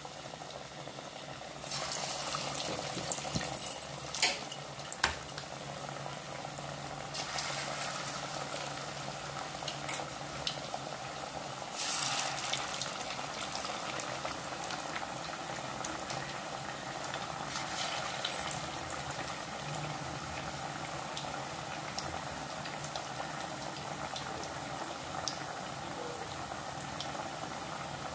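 Hot oil sizzling and bubbling steadily as masala-coated fish pieces deep-fry in a kadai. Louder surges of sizzling come at about 2, 7 and 12 seconds in, as more pieces go into the oil, and a few sharp clicks are heard around 4 to 5 seconds.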